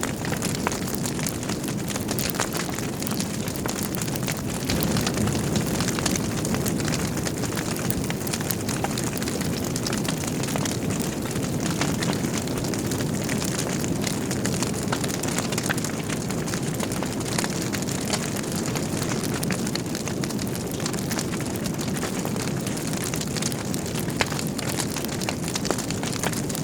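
Wood fire burning in a fireplace: a steady low rush of flames with frequent small crackles and pops from the burning logs.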